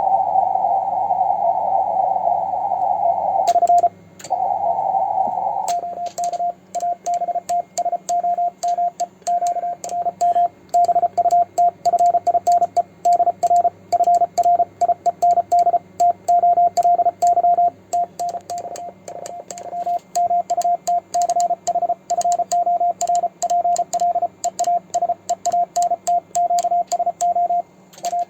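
Morse code sent on a homemade 3D-printed paddle key: a rapidly keyed sidetone beeping around 700 Hz, with the paddle's contacts clicking along with each element. For the first six seconds or so only band noise hisses through the receiver's narrow CW filter, broken once briefly.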